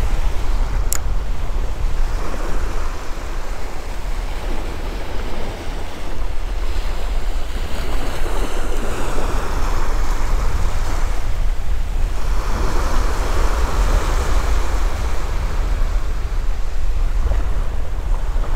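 Small surf waves washing up a sandy beach, swelling in and falling back every few seconds, with wind rumbling on the microphone.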